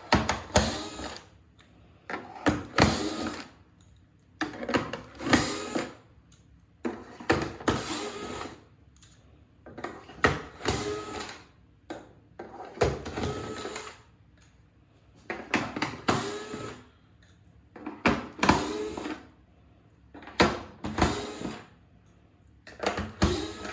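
Powered screwdriver running in about ten short bursts of a second or two each, its motor pitch shifting as it backs screws out of the pressure washer housing.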